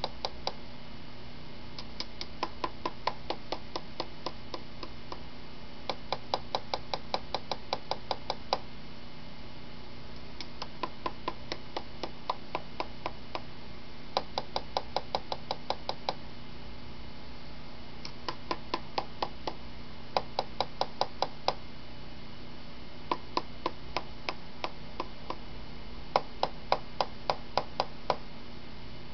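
Cockatiel knocking its beak in rapid runs of sharp taps, about four or five a second, in bouts of a few seconds with short pauses between.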